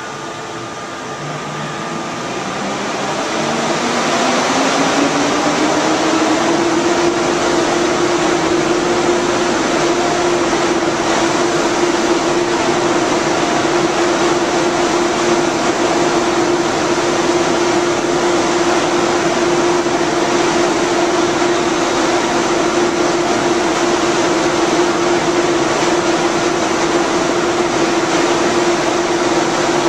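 Standing ICE high-speed train power car's cooling fans spinning up: a hum that rises in pitch over the first few seconds while the rushing air grows louder, then holds a steady pitch.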